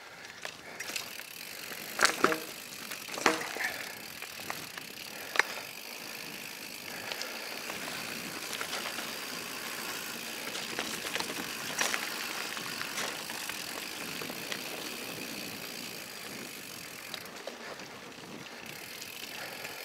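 Rocky Mountain Instinct full-suspension mountain bike riding a dirt trail: steady tyre-rolling and wind noise, with a few sharp knocks and rattles from the bike over bumps in the first six seconds, the loudest about two seconds in.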